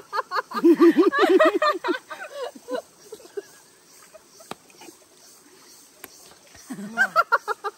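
Women laughing together in quick bursts of "ha-ha", loud in the first two seconds and again near the end, with a quieter stretch in between.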